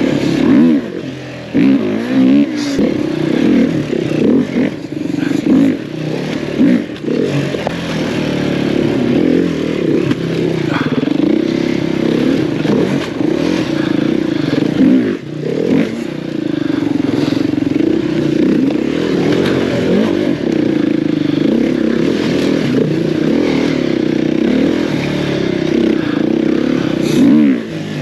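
Dirt bike engine revving up and falling back again and again as the bike is ridden over the obstacles, with a few knocks and clatter from the bike.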